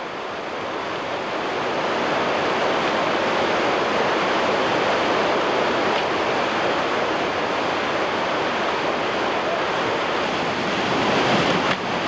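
Whitewater rushing down a steep rocky mountain river and waterfall: a loud, steady rush of water that swells up over the first couple of seconds and then holds.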